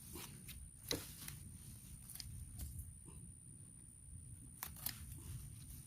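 Quiet rustling of potato plants being handled, with a few sharp clicks or snaps: one about a second in and two close together near the five-second mark.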